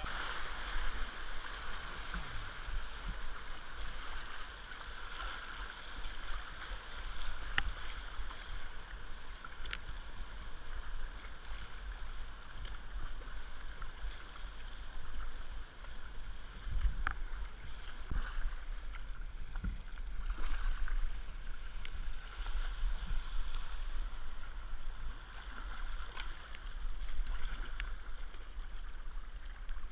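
Fast river water in spate rushing and splashing around a whitewater kayak as it is paddled downstream, with paddle strokes in the water and a few sharp knocks against the boat.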